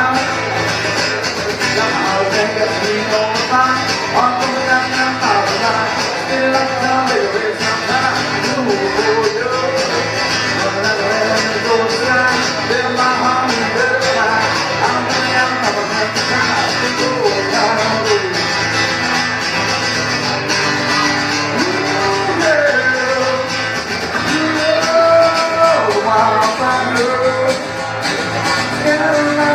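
Country/bluegrass song with strummed acoustic guitar under a melody line.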